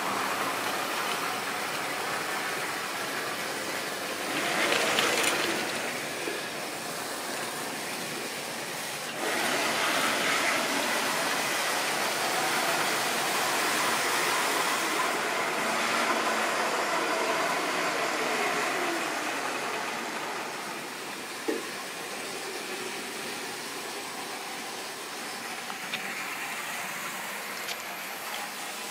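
Model trains running on sectional model railway track: a steady whirr and hiss of small electric motors and wheels rolling on the rails. It swells louder about four seconds in, and again from about nine seconds, then eases off after about twenty seconds, with a sharp click a little later.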